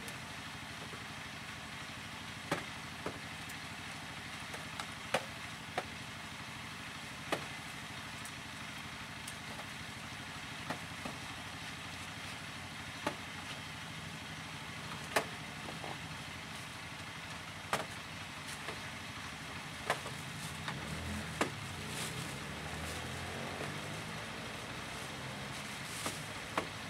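Irregular small clicks and knocks, a dozen or so, as old plastic electronic casings and their parts are pried apart and handled by hand, over a steady faint outdoor hiss.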